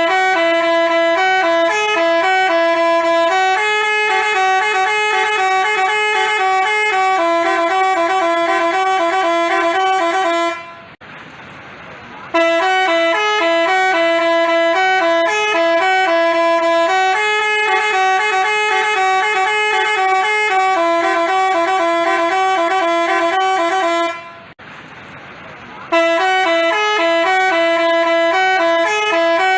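Telolet basuri musical bus horn playing a melody of several pitched horn notes. The tune runs about ten seconds, breaks off for a second or so, and starts over, playing twice more.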